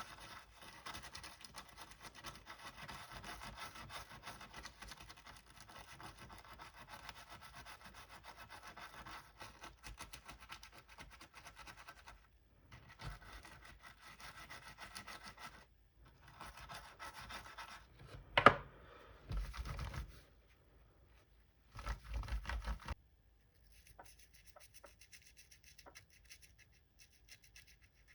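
A brush scrubbing back and forth over a 12-inch MacBook's stuck butterfly-switch keys, in stretches with short pauses. There is one sharp click past the middle and a couple of louder bursts of handling just after it.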